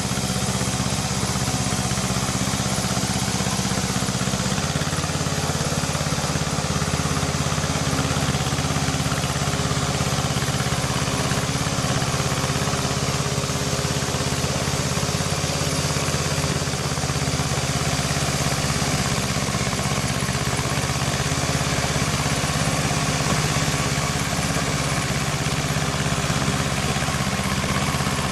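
Tractor engine running steadily, its note dropping slightly about four to five seconds in.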